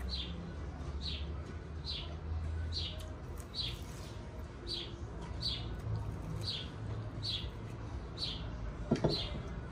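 A small bird chirping over and over, each chirp short and falling in pitch, about one every two-thirds of a second, over a low background rumble. A brief low sound comes near the end.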